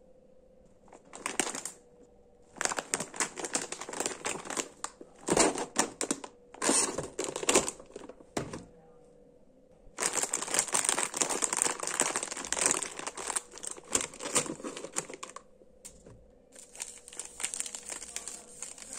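Plastic snack packets (bags of corn sticks and a wrapped wafer bar) crinkling as they are handled and set down, in several bursts with short pauses between.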